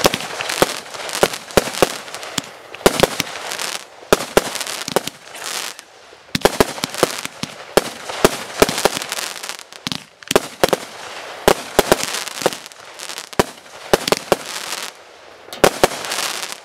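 Consumer aerial fireworks going off in rapid succession: sharp bangs of bursting shells, several a second, with crackle between them. They come in volleys with a few brief lulls.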